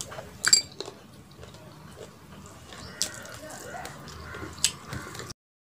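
Close-up wet chewing and lip smacking of a mouthful of rice and chicken curry eaten by hand, with a few sharp mouth smacks, the loudest about half a second in. The sound cuts off abruptly just before the end.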